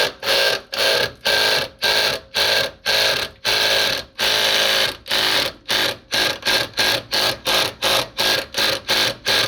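A hand or power tool working a rusted bolt on the DEF tank mounting: a fast, steady run of short metallic bursts, about two to three a second.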